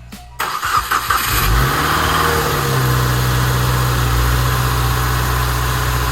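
Subaru WRX's turbocharged flat-four boxer engine cranked by the starter, catching about a second and a half in, flaring up in revs and then settling into a steady idle. There is no belt squeal, with the belt tensioner freshly replaced.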